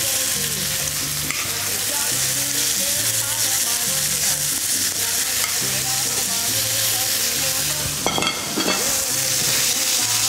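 Slices of chicken breast sizzling steadily as they fry in hot olive oil in a pan, with a single sharp knock about eight seconds in.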